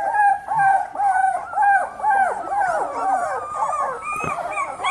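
A litter of beagle puppies whining and crying together, many short rising-and-falling cries overlapping several times a second: the puppies are crying for their mother.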